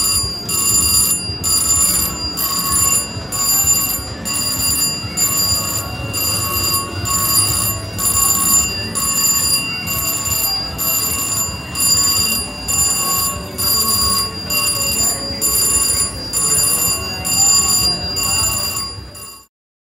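VGT Polar High Roller slot machine's jackpot bell ringing on and on in short repeated bursts with brief breaks, over the hum of a casino floor. This is the alarm of a hand-pay jackpot lockup, the machine waiting for an attendant. The sound cuts off suddenly near the end.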